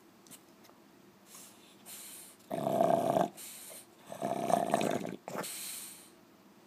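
French bulldog snoring: two loud snores about a second and a half apart, each followed by a softer, hissing breath. Snoring like this is typical of the breed's short, flat-faced airway.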